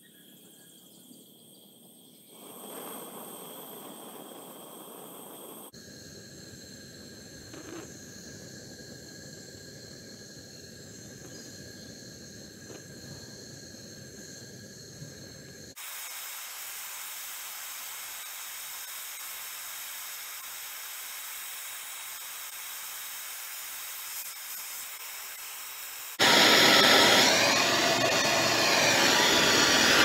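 Gas torch flame hissing steadily as it melts gold powder in a ceramic dish. The hiss comes in a few spliced stretches that change level abruptly, and is much louder for the last few seconds.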